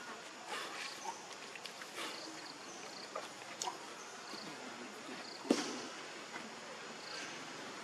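Outdoor ambience with insects chirping: short high notes at two pitches repeat steadily. Over them come scattered faint short squeaks and clicks, with one sharper click about five and a half seconds in.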